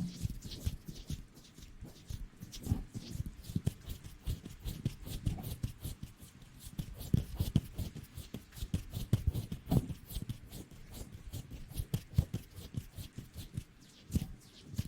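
Close-miked ASMR rustling: a dense, irregular stream of crackles and scratches with soft thumps underneath.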